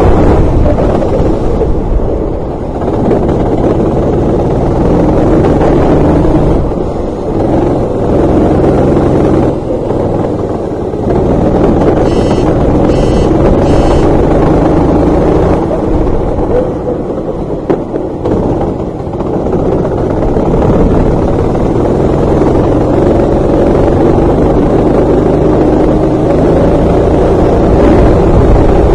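Racing kart engine heard close from its onboard camera, revving hard on the straights and falling away several times as the driver lifts for corners, with wind buffeting the microphone.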